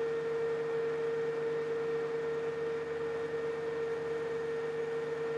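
Metal lathe taking a turning cut on a long shaft, running steadily with a constant high ringing tone: light chatter from the long shaft vibrating under the cut.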